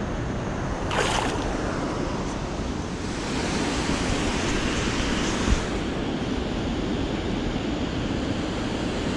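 Steady rush of river water pouring over a low dam's spillway and running past the rocks below it. A short sharp noise comes about a second in, and a brief thump about five and a half seconds in.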